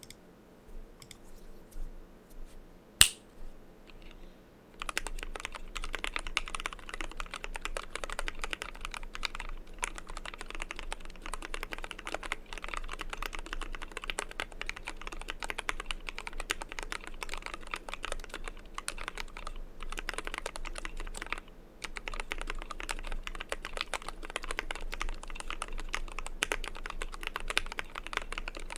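Fast, continuous typing on a 60% mechanical keyboard: a Zeal60 board in a KBDfans Tofu case with lubed Tealios V2 linear switches, PBT keycaps and foam under the PCB. One sharp click about three seconds in; steady typing starts about five seconds in, with a short pause about three-quarters of the way through.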